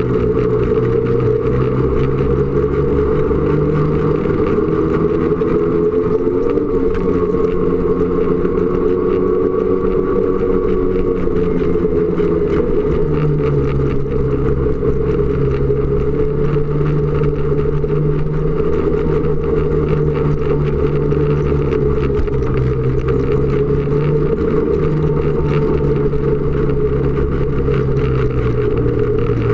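Snowmobile engine running steadily under way, its pitch wavering and shifting around the middle before holding steady again.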